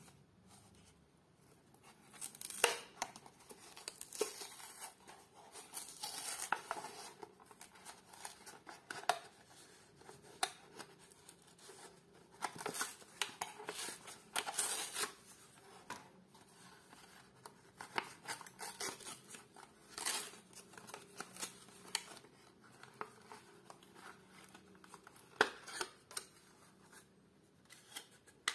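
Cardboard backing of a toy car blister pack being torn open by hand, with the clear plastic blister crinkling as it is pulled free, in irregular bursts of ripping.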